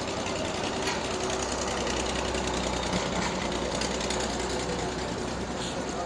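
An engine running steadily at idle close by, a low even rumble.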